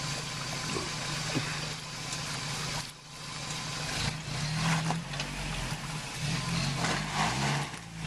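1993 Toyota 4Runner's engine running under load as it crawls over creek-bed rocks, dipping briefly about three seconds in, then revving up twice in stronger surges.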